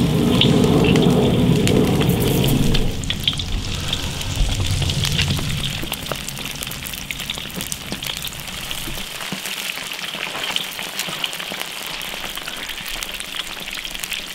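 Starch-coated bullfrog pieces deep-frying in hot oil in a wok: a steady sizzle full of fine crackling and popping. It is louder and fuller for the first three seconds while pieces are still going into the oil, then settles to a lighter, even crackle.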